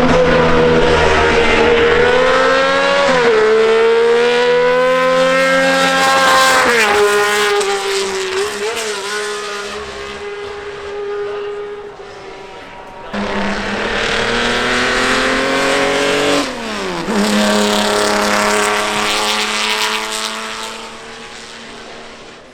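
High-revving racing car engines running hard up a hillclimb, the engine note holding high and then dropping in steps at gear changes. About halfway through, the sound switches abruptly to another car revving hard and shifting, which then fades away.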